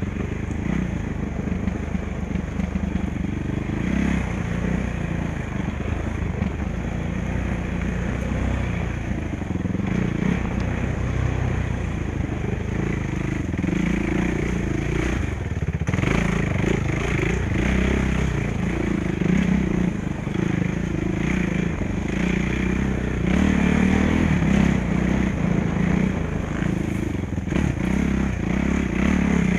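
Suzuki RMX450Z single-cylinder four-stroke dirt bike engine running under load on a trail, revving up and down with the throttle. The throttle shuts off briefly about halfway through.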